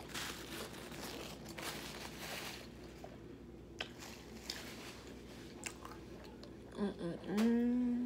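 Close-up mouth sounds of chewing cheese-covered waffle fries, with a few small clicks. Near the end comes a held, hummed "mmm".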